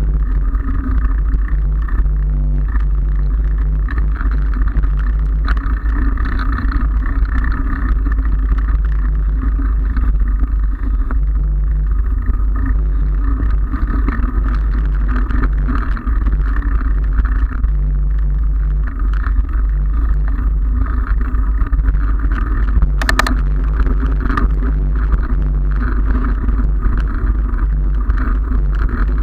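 Steady riding noise from a bike on brick paving: wind rumbling on the camera microphone over tyre hum from the pavers. A brief sharp rattle about two-thirds of the way through.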